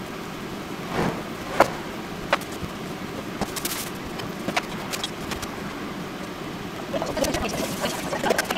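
Kitchen handling noises over a steady background rumble: a few sharp knocks and clatters as things are set down on a wooden counter, among them a head of lettuce and a plastic salad spinner. Toward the end, rustling and crinkling as the lettuce is handled in its plastic bag.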